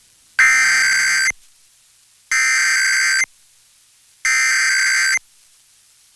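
Emergency Alert System SAME header: three harsh, buzzing bursts of digital data tones, each about a second long and about a second apart, announcing the start of an EAS test message.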